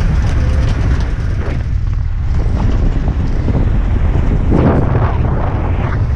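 Police pickup truck driving along a road, heard from on board: a steady engine and road rumble with wind buffeting the microphone, the gusts growing stronger about four and a half seconds in.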